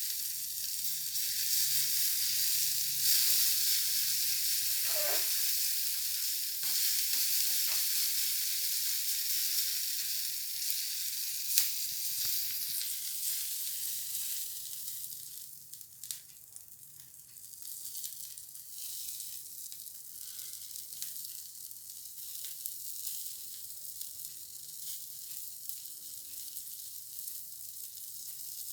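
Shrimp sizzling as they fry in hot oil in a pan. The sizzle is loud at first and dies down markedly about fifteen seconds in, then carries on more quietly. A single sharp click, like a utensil knocking the pan, sounds at about twelve seconds.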